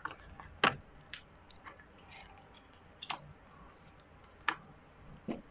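Oracle cards being handled on a table: a handful of quiet, brief clicks and taps at irregular intervals.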